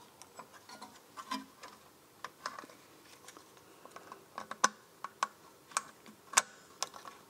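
Irregular small metallic clicks and scrapes of a hook and a steel brake-shoe return spring against a BMW Z3 rear parking-brake shoe and backing plate as the spring is pulled toward its hole. The clicks get sharper and louder in the second half.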